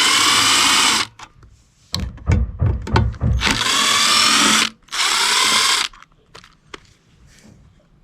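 Cordless drill/driver spinning in three short runs, each with a whining motor pitch. Between the first and second runs there are a few low knocks of the tool or the work being handled.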